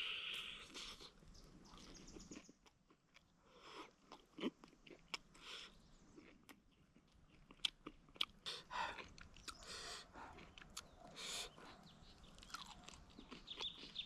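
A person chewing and biting into food close to the microphone: irregular crunches and wet clicks at an uneven pace.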